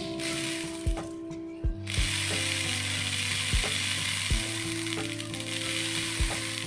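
Dry activated carbon granules pouring from a jar into a plastic funnel and reactor tube, a grainy rattling hiss that grows much stronger about two seconds in. Background music with a steady beat runs underneath.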